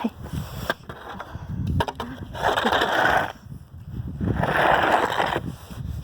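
Snow shovel scraping through snow as a path is cleared, in two long scrapes about two seconds apart.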